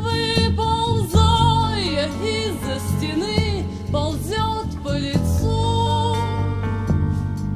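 Music: a woman singing a slow, gliding melody over instrumental accompaniment.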